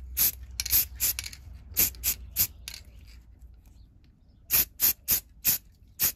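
Aerosol can of Chaos Black spray primer giving short, quick hissing bursts, about a dozen in two groups with a pause of a second and a half between them, laying a light coat on a small plastic model.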